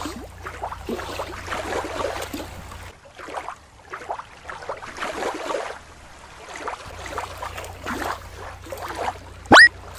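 Shallow water trickling and splashing over rocks, quieter for a few seconds in the middle. Near the end comes one brief, loud, sharply rising whistle-like glide.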